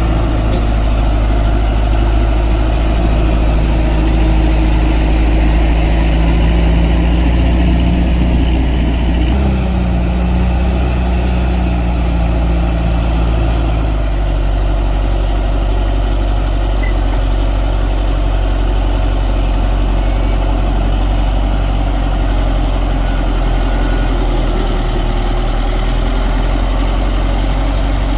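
Diesel engine of a heavy earthmoving machine running loudly and steadily, its engine note shifting about nine seconds in and again around fourteen seconds.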